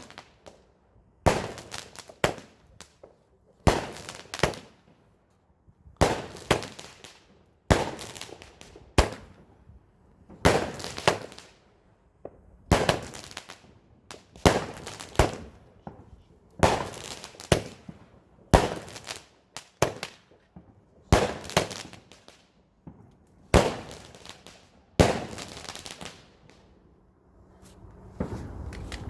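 Multi-shot firework going off: a sharp bang every one and a half to two seconds, each followed by a short crackle and echo, about sixteen shots in all, ending a few seconds before the end.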